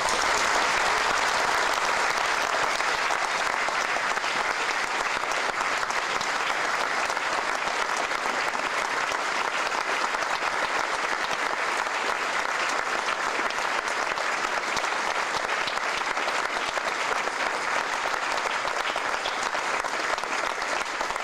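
Large audience of several hundred people applauding, a dense, steady clapping that breaks out all at once and carries on without letup.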